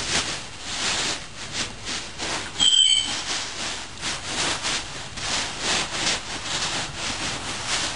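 A Shiba Inu's paws scratching and digging at a fabric donut bed in quick repeated strokes, several a second, the dog nesting before it lies down. A brief high-pitched squeak sounds a little under three seconds in.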